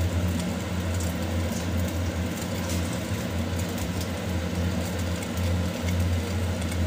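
A steady low mechanical hum, constant throughout, over a faint even hiss.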